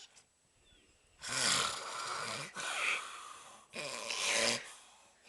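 A man snoring loudly with a pig-like sound: three noisy breaths one after another, starting about a second in, then fading.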